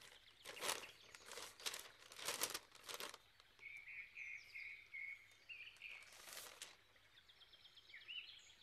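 Paper rustling as a letter is opened and unfolded by hand: a run of short crisp rustles in the first three seconds and one more a little past the middle. Small birds chirp softly in the background.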